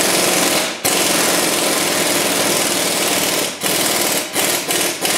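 Impact wrench driving in the 21 mm lower bolt of a new rear shock: a long run with a brief break just under a second in, then several short trigger bursts near the end as the bolt snugs tight.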